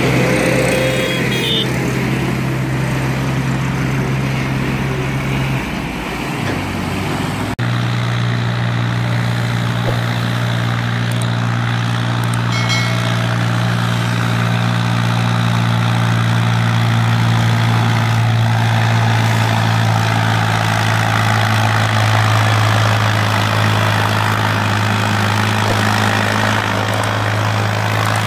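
Diesel tractor engine running steadily under load while hauling heavily loaded sugarcane trolleys, a low, even engine note. The sound breaks off abruptly about seven and a half seconds in and picks up again.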